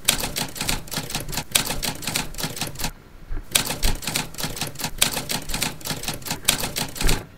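Typewriter key-clacking sound effect: a rapid run of clicks that pauses briefly about three seconds in, then resumes and stops abruptly near the end, going with caption text typing onto the screen letter by letter.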